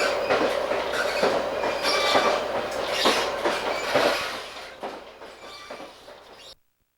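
Amtrak train in motion: wheels clicking over rail joints with a thin, high wheel squeal above the rumble. It fades away over the last few seconds and cuts off abruptly near the end.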